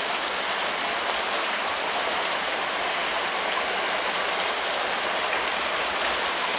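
Heavy rain pouring steadily, an even hiss of rain on surfaces.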